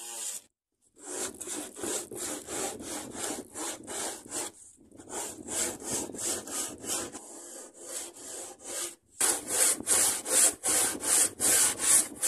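Hand-tool strokes working plywood on a proa hull, going back and forth at about two to three strokes a second. They start about a second in, pause briefly near halfway, and grow louder over the last few seconds.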